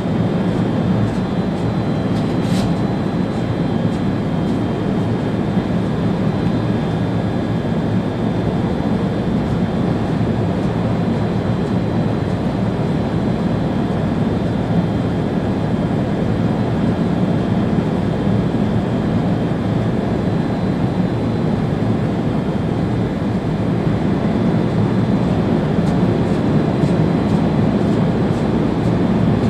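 Railjet train running at speed, heard from the driver's cab: a steady rumble of wheels on rail with faint constant high whines over it. There is a single short click about two and a half seconds in.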